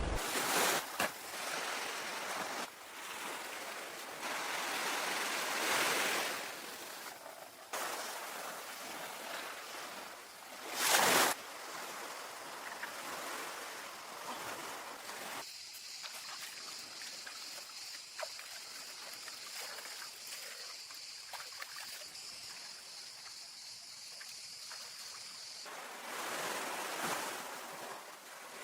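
Sea waves washing in and drawing back on a beach in slow swells, with one louder rush about eleven seconds in. A steady high-pitched buzz runs underneath for about ten seconds in the middle.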